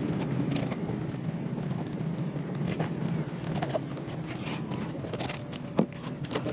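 Scattered clicks and knocks of a knife and a fish being handled while a fish collar is cut, over a steady low background rumble. The sharpest knock comes near the end.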